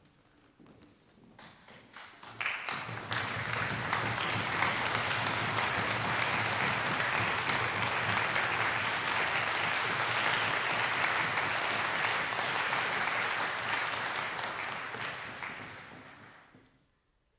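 Concert audience applauding the cellist and conductor onto the stage: a few scattered claps build within a couple of seconds into full, steady applause, which dies away near the end.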